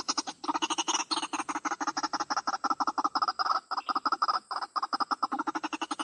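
White-breasted waterhen calling: a fast, steady run of short repeated notes, several a second, with a short break about half a second in. This is the female ruak-ruak's call, used as a lure to draw in males.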